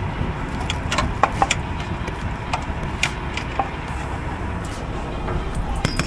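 Strong wind buffeting the microphone, a steady low rumble, with scattered light clicks and knocks throughout.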